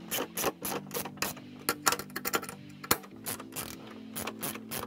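Ratchet wrench clicking in quick, uneven strokes, about four or five clicks a second, as bracket screws are tightened down.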